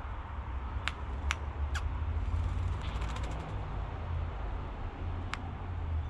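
Wattlebird giving a short, harsh rasping rattle, with a few sharp clicks, over a steady low rumble.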